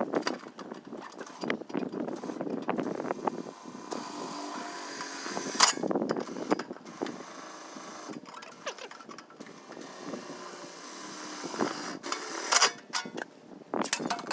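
Tool work on a steel pail: scattered metallic clicks, scrapes and knocks, with a steadier stretch of noise in the middle and two sharp knocks.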